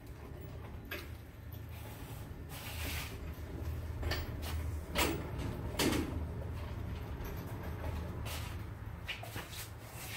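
Engine hoist (cherry picker) on casters being pushed across the shop floor, loaded with the sheet-metal front clip of a 1949 Chevy 3100. It makes a low, steady rolling rumble with scattered knocks and clanks, the loudest two about five and six seconds in.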